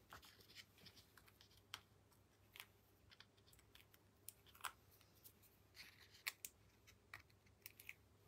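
Faint, scattered small clicks and scratches of fingers peeling the paper backing off strips of double-sided tape on a card and flicking the backing pieces onto a cutting mat.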